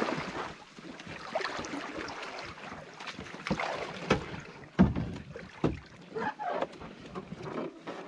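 Canoe paddle strokes splashing in shallow water as the canoe comes in to a rocky landing, with a few sharp knocks, the loudest about five seconds in.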